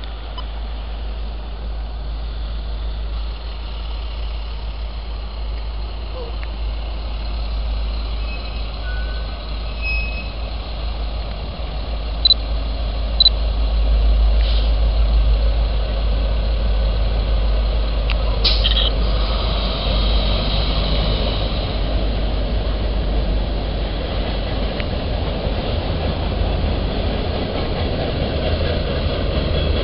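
Steady low rumble of an approaching freight train that grows louder about halfway through. Two short high beeps come a second apart midway, and a sharp high sound a few seconds later.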